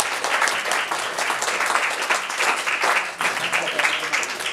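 A small group of people applauding: dense, steady hand clapping, with some voices mixed in.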